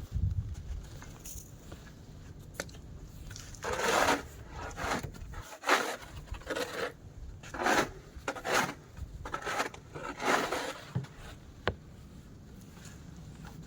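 A run of irregular scraping, crunching strokes of snow being cleared, about ten in all. The loudest comes about four seconds in, and they stop a few seconds before the end.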